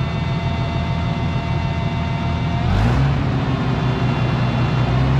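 Oliver 880 gas tractor engine running steadily; about two and a half seconds in, its note changes and gets a little louder, as with a change of throttle or load.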